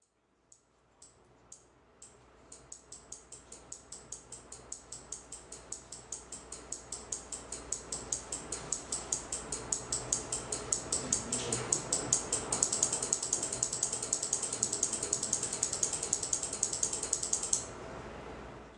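Evenly spaced sharp ticks, at first about two a second and then three to four a second, growing steadily louder over a low hum and stopping suddenly near the end.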